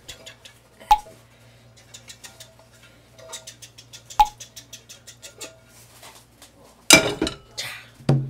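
Kitchenware being handled: small clicks and taps over a low steady hum, with two sharp metallic clinks that ring briefly, about a second in and about four seconds in. Loud music comes in near the end.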